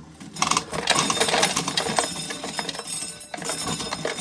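Dried ear corn being shelled: a dense, rapid clatter of kernels breaking off the cob, with a brief lull about three seconds in.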